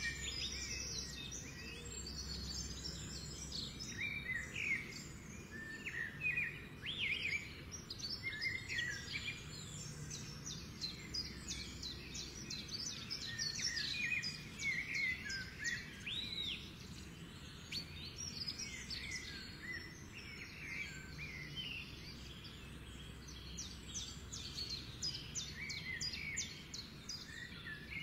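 Birds singing: many short chirps and trills, over a low steady background hum.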